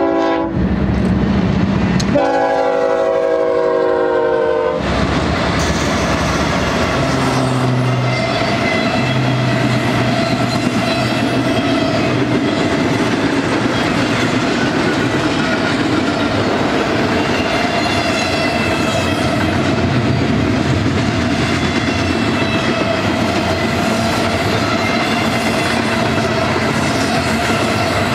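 A BNSF freight train's horn gives a short blast and then, about two seconds later, a long blast of roughly three seconds. After the horn, the GE ES44DC diesel locomotives pass close by, followed by loaded double-stack container well cars rolling past with a steady clatter of wheels on rail.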